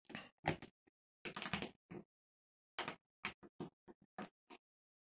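Light clicks and taps of a OO-gauge model locomotive being handled and set onto the track by hand, with a quick run of small ticks about three seconds in.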